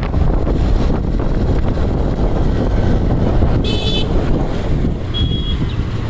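Steady low rumble of wind and road noise, with a vehicle horn honking briefly a little past the middle and a second short, thinner toot about a second later.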